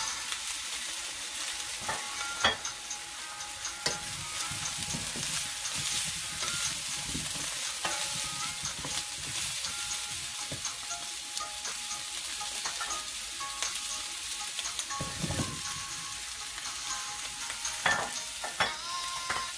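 Small potatoes and sliced onion sizzling in olive oil in a frying pan, stirred with a wooden spatula, with occasional knocks of the spatula and vegetables against the pan.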